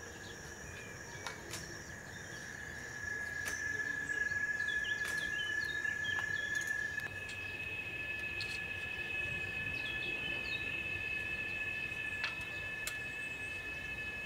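Rainforest ambience: steady high-pitched insect drones, one giving way to another about seven seconds in, with scattered short bird chirps and a few faint clicks.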